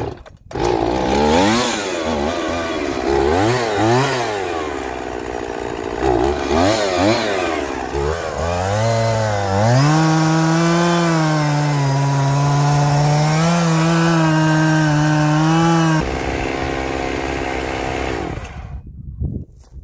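Gas chainsaw revving up and down repeatedly, then held at high revs for about six seconds while cutting a point on the end of a peeled cedar fence post. It then runs steadier and quieter for a couple of seconds and stops near the end.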